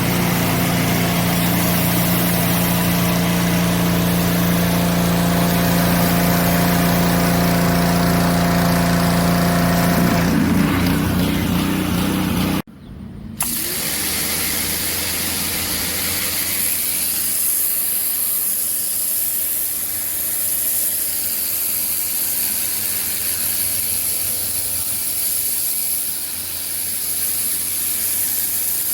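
Pressure washer's engine running steadily under the noise of the spray. After a brief dropout about thirteen seconds in, a steady hiss of high-pressure water spray takes over, with a fainter hum beneath it.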